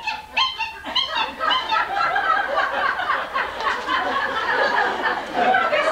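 A roomful of people laughing, many voices overlapping.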